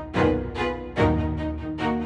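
Background music: a track with pitched chords and a strong beat, notes struck about every half second.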